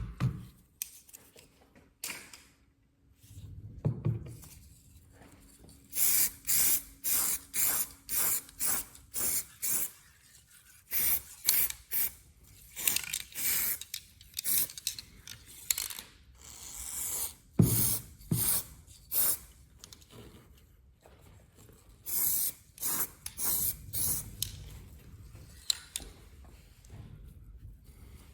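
Aerosol spray paint can spraying in many short hissing bursts, one after another, as the paint is laid on in quick passes. There is a lull a little after the middle and a couple of dull knocks among the bursts.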